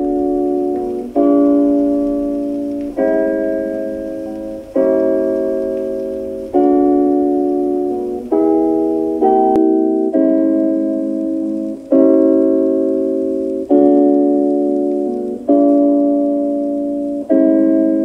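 Music played through portable Bluetooth party speakers: slow piano-like keyboard chords, a new chord struck about every two seconds and left to ring. It plays on a Braven XXL/2 first and switches to a JBL Partybox 100 about halfway through.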